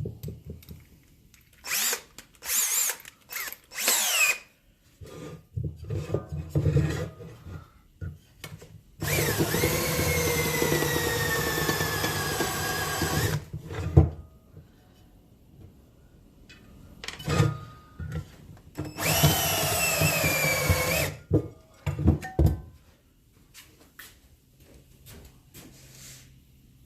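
Power drill with a countersink bit countersinking freshly drilled holes. It gives a few short trigger blips, then two longer runs of about four and two seconds, its motor pitch sagging as the bit cuts, with knocks of handling in between.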